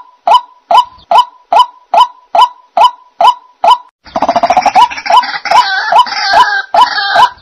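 White-breasted waterhen calls: short croaking notes repeated evenly, about two and a half a second. About four seconds in they give way abruptly to a louder, denser chorus of overlapping, noisier calls.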